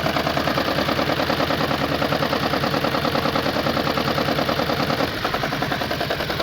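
Engine idling with a rapid, rhythmic knock and a misfire while one cylinder's fuel injector is disconnected in a cylinder-drop test; it runs worse with that injector off. The level drops slightly about five seconds in.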